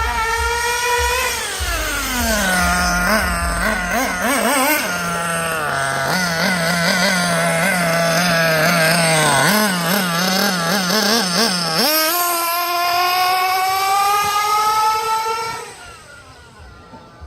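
Thunder Tiger EB4 S2 1/8-scale electric RC buggy's motor and drivetrain whining. The pitch falls for the first two seconds, wavers low with quick throttle blips, then jumps up about twelve seconds in and climbs steadily on a long run before cutting off sharply near the end.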